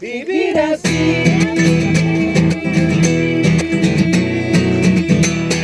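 Music led by a strummed acoustic guitar, with a steady rhythm.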